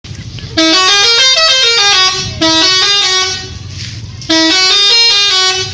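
Tour bus telolet horn, a multi-note musical horn, playing a quick stepped melody of bright tones in three phrases with short pauses between them.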